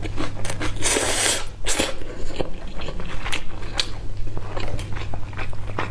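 Close-miked eating of noodles: a long slurp about a second in, then chewing with many small wet mouth clicks. A steady low hum runs underneath.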